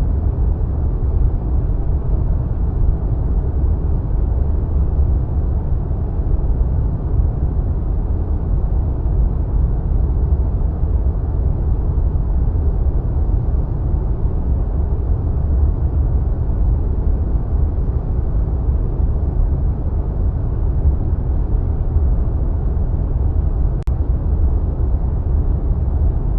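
Wind sound effect: a steady, deep rushing of wind, like flying through clouds. Near the end, a brief dip with a faint click.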